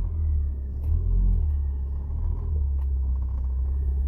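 Ford Focus ST225's turbocharged five-cylinder engine running steadily as the car drives off, a deep low sound with little else over it.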